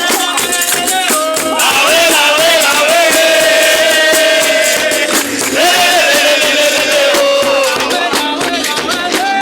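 Capoeira music: a singer holds two long, gliding lines over steady percussion with a tambourine jingle and a shaker rattle, as from the pandeiro and the caxixi.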